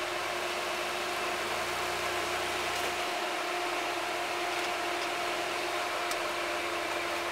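Mitsubishi 4x4's engine running at low speed as it crawls over rocks: a steady drone with a constant whine, and a low rumble that swells for about a second and a half near the start.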